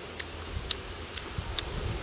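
A flying insect buzzing steadily over a low rumble, with light clicks of chewing about every half second.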